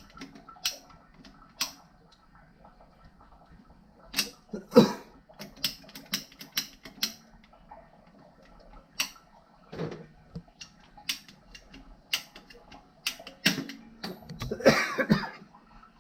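Irregular sharp clicks and knocks as a plastic water pipe is trimmed with a cutter and handled, with a few short scraping rustles in between.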